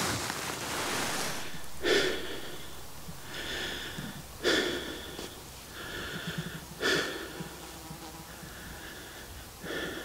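A person breathing heavily, with a loud breath roughly every two and a half seconds.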